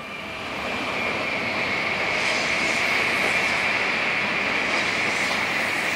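Sotetsu 9000 series electric train accelerating away from the platform: the Hitachi IGBT VVVF inverter and traction motors sound a steady high tone over the running noise, which builds during the first second and then holds.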